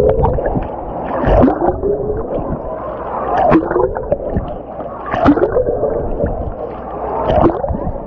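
Wave-pool water heard from underwater: muffled churning and gurgling that swells about every two seconds as waves pass over, each swell carrying sweeping, gliding tones and short splashy clicks.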